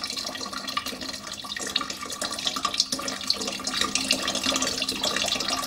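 Water running and splashing steadily through a copper replica of Ctesibius's water clock, fed from a lab tap by a hose, with a faint steady hum underneath.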